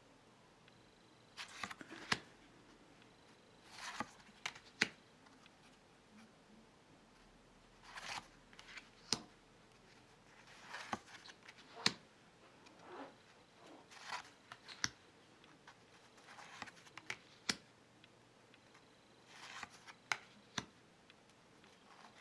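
Large tarot cards handled one at a time: each turn is a soft sliding rustle of card against card followed by one or two sharp clicks, repeating about every two to three seconds.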